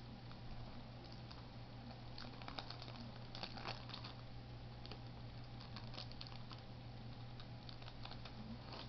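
Faint scattered light clicks and rustles of trading-card packaging being opened and cards handled, over a steady low electrical hum.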